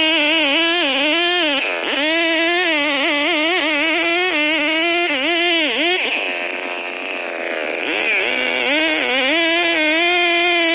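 Stihl 070 two-stroke chainsaw with a 2.5 m bar running at high revs, its pitch wavering up and down. About six seconds in the revs drop lower for about two seconds, then pick back up.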